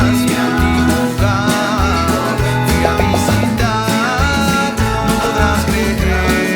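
Instrumental break of a children's song: upbeat music over a steady, evenly repeating bass line.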